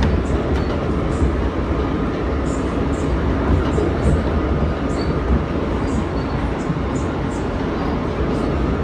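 Inside an R160A subway car running between stations: a steady rumble of wheels on rail, with light scattered clicks.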